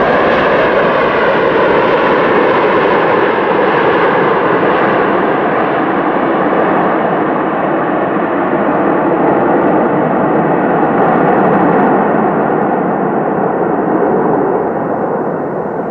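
Airbus A330 jet engines at takeoff power as the airliner rolls, rotates and lifts off: a loud, steady rush of jet noise with a whine that drops in pitch in the first couple of seconds as the aircraft goes past, fading in the last couple of seconds as it climbs away.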